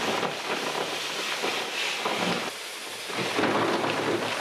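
Rough crackling and rustling noise of masonry work on an old brick wall, with mortar and brick debris crumbling, dipping briefly a little before three seconds in.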